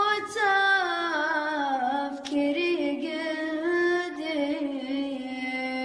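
A solo voice singing an Arabic song in long, ornamented phrases. The notes slide and waver downward, with a short break about two seconds in, and then settle into a steady held note near the end.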